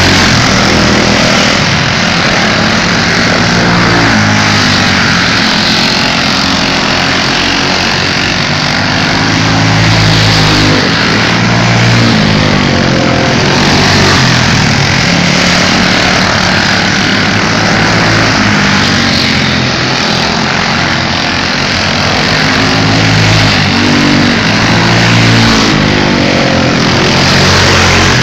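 Engines of small open-wheel dirt-track race cars running flat out in a pack. Several engine notes rise and fall over and over and overlap, a loud continuous din of revving and easing off as the cars circle the oval.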